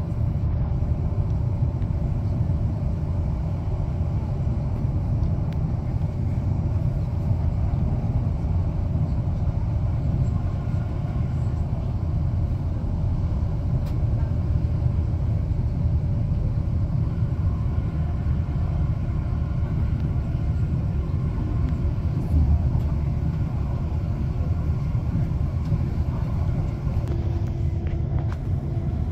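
Steady low rumble of an electric passenger train running at speed, heard from inside the carriage. A faint steady tone comes in near the end.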